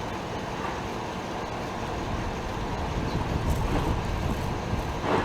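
Steady low rumble of idling vehicles, with a short louder sound near the end.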